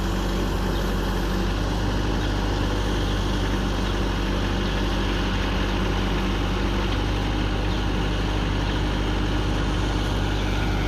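Bobcat 773 skid steer's turbo diesel engine running steadily, with no change in speed.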